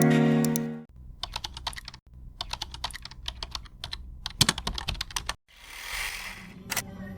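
Computer keyboard typing: a run of quick, irregular key clicks. A held music chord cuts off just before it, and a short whoosh comes near the end.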